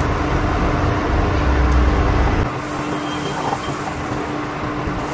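Butter sizzling and foaming in a stone-coated frying pan on an induction cooktop as it is stirred with chopsticks, over a steady low hum. A low rumble underneath drops away about halfway through.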